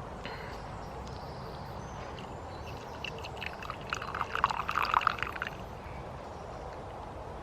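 A short spell of splashing, gurgling water, lasting about two seconds and starting about three seconds in, over a steady background hiss.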